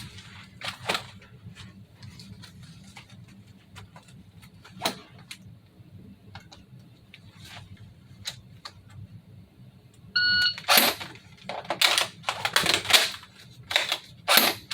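Faint scattered handling clicks, then a shot timer gives a single short beep about ten seconds in. A quick run of loud clacks and rattles follows: the airsoft FN P90 replica's magazine being changed and the gun fired for the timed reload drill.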